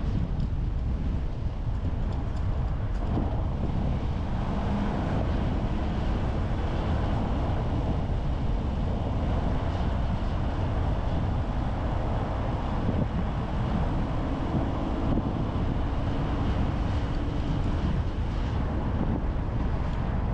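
Steady road and engine noise of a car driving, a low rumble with a faint engine hum now and then.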